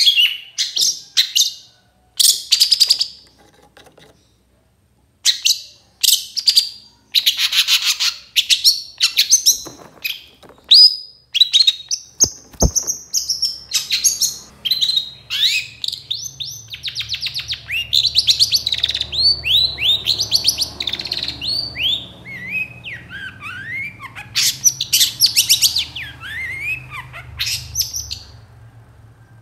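Long-tailed shrike (cendet) singing a fast, varied run of harsh, scratchy chirps and many short downward-sliding whistled notes, with brief pauses early on. A faint low hum sits underneath from about halfway, and there is one sharp click near the middle.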